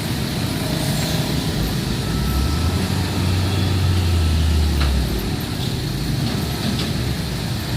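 Road traffic passing, with a heavy vehicle's low engine rumble. The rumble swells about two and a half seconds in and fades out about five seconds in.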